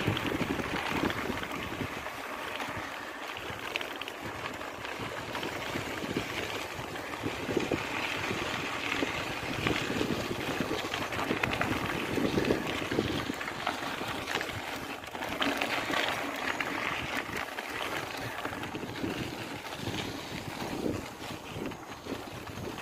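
Wind buffeting the microphone of a moving bicycle, with tyres rolling over a sandy dirt trail and the bike jolting and rattling over rough ground.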